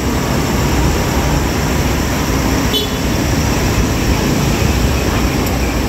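Steady city street noise: a constant traffic rumble along the street, with a brief high-pitched chirp about halfway through.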